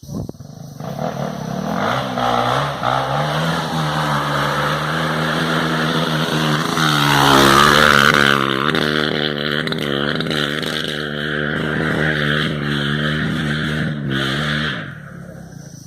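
Honda Tornado motorcycle, its single-cylinder four-stroke engine bored out to 293cc, revving hard through its exhaust. The sound starts abruptly and is loudest about halfway through. After that the revs rise and fall repeatedly, and the engine drops away shortly before the end.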